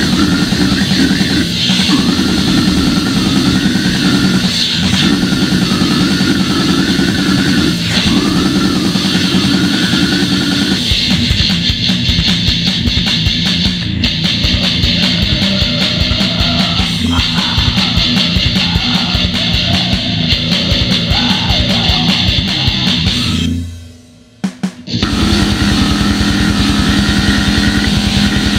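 Gore grind music: heavily distorted guitars and drums, dense and loud, with a brief drop-out about three-quarters of the way through before it comes back in.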